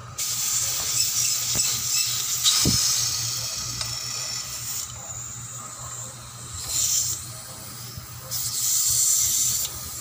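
Refrigerant gas hissing out of a fitting on a refrigerator's compressor lines. It starts suddenly, eases off in the middle and swells again twice near the end, over a low steady hum.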